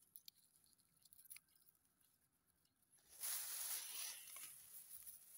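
Rice leaves rustling and brushing against the phone, starting suddenly about three seconds in after a near-silent stretch with a few faint ticks.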